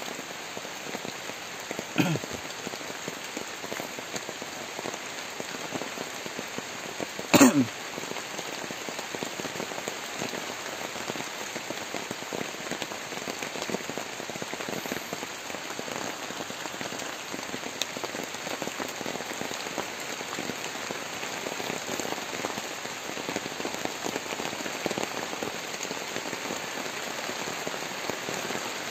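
Heavy rain falling steadily and pattering on a plastic tarpaulin shelter overhead. A single sharp knock stands out about seven seconds in, with a smaller one about two seconds in.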